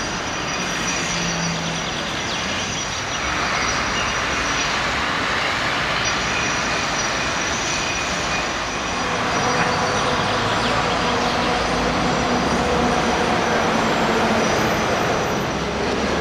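Steady city traffic noise heard from above, mixed with rail noise, rising somewhat about three seconds in and again near the middle.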